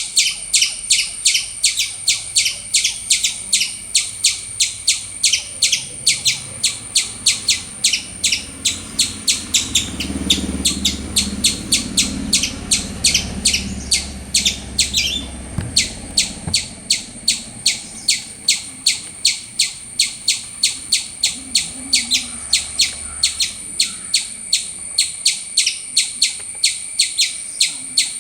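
Squirrel giving a long, steady run of loud, sharp chirps, about three or four a second, with a brief break about halfway through.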